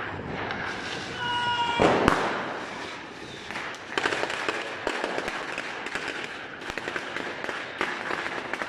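Fireworks going off: a couple of loud bangs about two seconds in, followed by rapid crackling from firecrackers.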